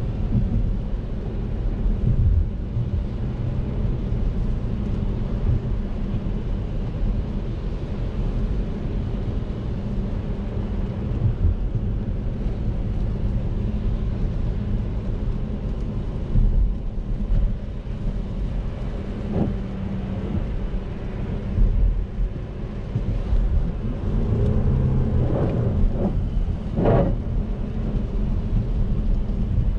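Inside the cabin of a 2012 Audi A7 3.0 TDI, its V6 diesel cruising at about 60 km/h: a steady low engine and road rumble with tyre noise from the wet road.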